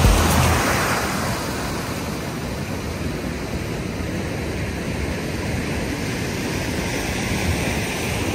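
Machine-made waves breaking and washing through a surf wave pool: a steady rush of water, swelling about a second in.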